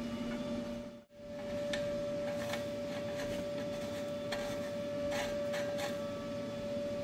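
Light, scattered taps and scrapes of hands working on the metal exhaust pipe and the oxygen sensor's cable, over a steady high-pitched hum. The sound drops out briefly about a second in.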